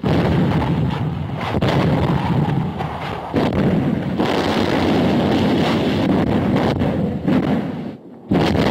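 Artillery bombardment: a continuous din of gunfire and shell explosions, with sharper blasts standing out every few seconds, one about three seconds in.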